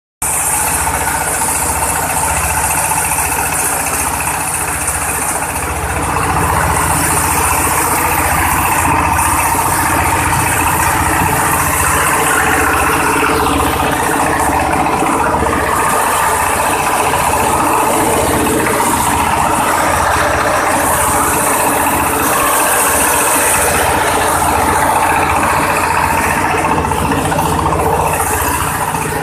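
Engine-driven oil palm frond chopper running steadily, its engine and spinning chopper making a continuous mechanical din with a pulsing low rumble. It gets a little louder about six seconds in.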